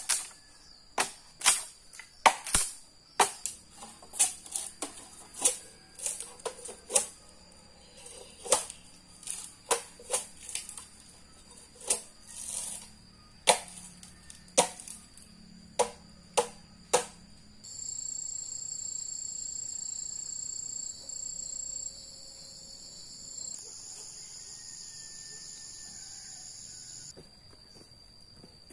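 Sharp chopping knocks, one or two a second, over a steady high insect trill. The knocks stop after about 17 s, and a louder steady high-pitched insect buzz takes over, shifting level a few times before dropping back near the end.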